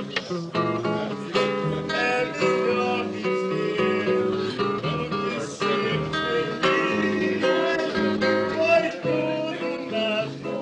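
Acoustic guitar playing, a steady run of plucked notes and chords.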